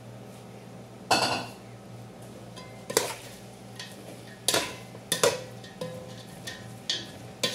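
Long metal spoon stirring and scraping through carrots and chicken in a large aluminium pot, knocking against the pot's side about half a dozen times at uneven intervals. A steady low hum runs underneath.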